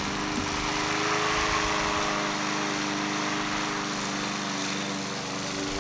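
Steady droning hum over a constant hiss, like a small motor running, with several steady tones that do not change in pitch or level.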